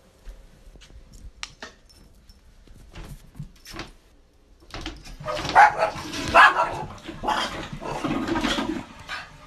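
Small dog vocalizing in a string of about five short calls through the second half, after a few faint clicks and taps.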